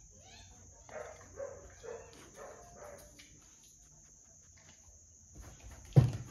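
Several short cat calls in the first half, over a steady high-pitched whine, then a single sharp thump near the end.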